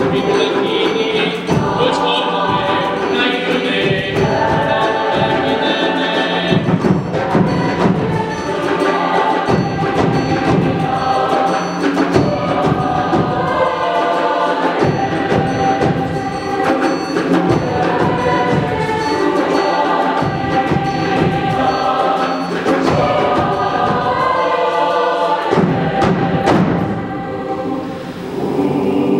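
Choir singing together with a percussion ensemble, with djembes and other hand drums beating under the voices. Near the end the drums drop out for a few seconds while the voices carry on, then the drums come back in.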